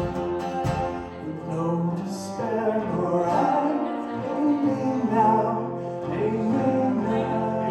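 A live band playing a song, with a voice singing drawn-out notes over the instruments and a couple of low drum thumps near the start.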